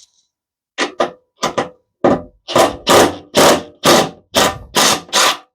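A hammer striking a socket on a rusted nut, about a dozen sharp metal blows with a short ring after each. The first few are lighter and spaced unevenly, then they come louder and steady at about two a second.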